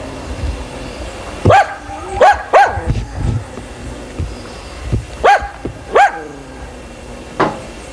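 A dog barking: six short barks in two groups of three, the last one fainter.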